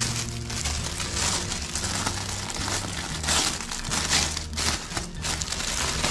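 Clear plastic packaging crinkling and rustling in irregular bursts as it is handled and pulled off a folded fabric bike travel bag.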